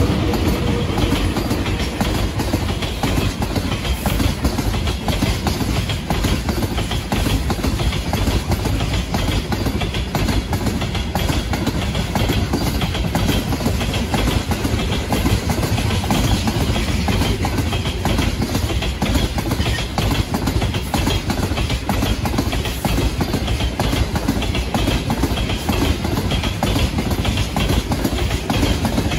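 Freight train wagons rolling on the rails, a steady, unbroken sound of wheels on track.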